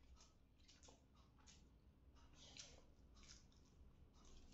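Faint eating sounds of rice and curry being eaten by hand: short, irregular wet squishes and clicks, several a second.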